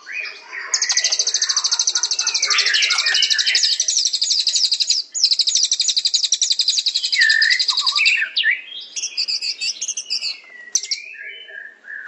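Songbirds singing: a long, very rapid, high-pitched trill, broken once partway, with lower chirping notes beneath it, then varied short whistled phrases near the end.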